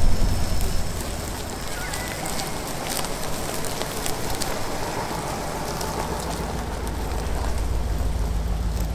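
Wind buffeting the microphone, with crackling footsteps on wood-chip mulch.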